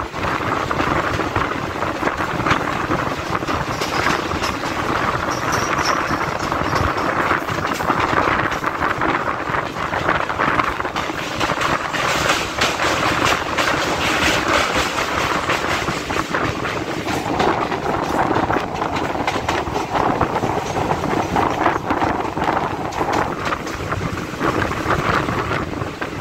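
An ICF DEMU passenger train running along the line, heard from an open window of the coach: wheels clattering over the rails in a dense stream of clicks over a steady rushing noise.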